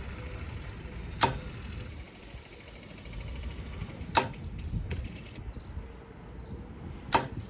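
Compound bow shot three times, each release a sharp crack, about three seconds apart.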